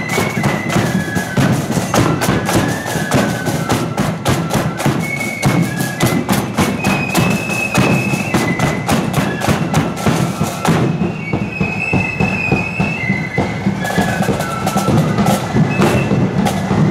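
Marching flute band playing a tune: flutes carry a high melody over rapid snare drumming and a steady bass drum beat. The snare drums ease off for about three seconds past the middle.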